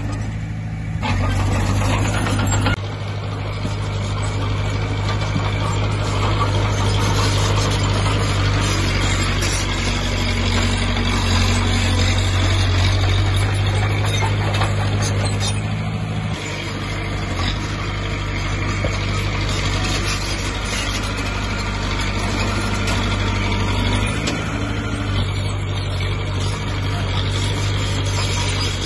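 The diesel engine of a Komatsu D20P bulldozer runs steadily, its level shifting a few times, with a drop about halfway through.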